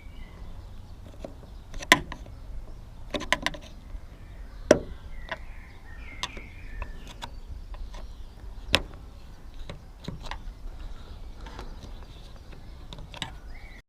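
Scattered sharp clicks and knocks of plastic door-trim parts and hand tools being worked on a car's inner door panel, about half a dozen over a low steady hum, the loudest about two seconds in and again near five seconds.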